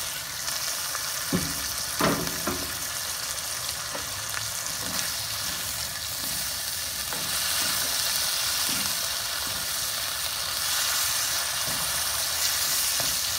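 Pork belly and vegetables sizzling in a nonstick wok while a wooden spatula stirs them. A couple of knocks come about one and two seconds in, and the sizzle grows louder about halfway through.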